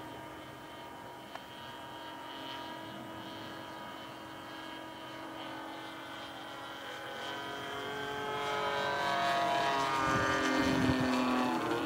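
Super Tigre .90 glow engine of an RC airplane running at high throttle in flight, steady at first, then growing louder and dropping in pitch as the plane flies past near the end. The throttle is stuck and the engine will not idle down.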